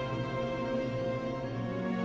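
Soundtrack music of sustained, held chords; a new lower note comes in near the end.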